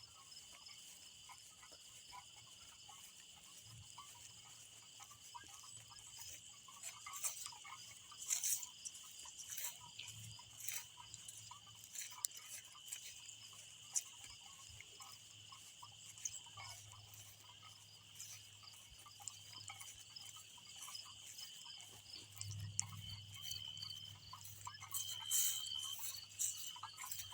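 Night chorus of insects, a steady high-pitched trilling that does not let up, with scattered rustles and clicks. A low drone swells for a few seconds near the end.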